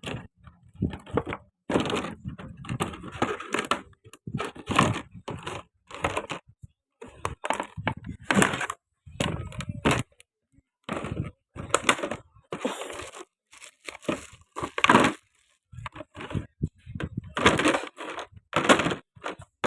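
Packaging of a Wahl product being handled and opened: cardboard and plastic crackling, crumpling and tearing in irregular bursts with short pauses between.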